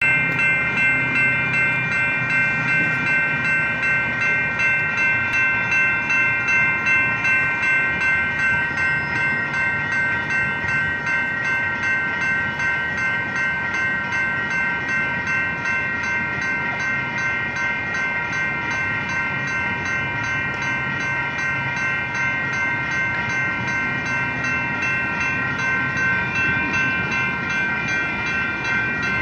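Railroad grade-crossing warning bell ringing steadily in rapid, even strokes while the crossing gates are down.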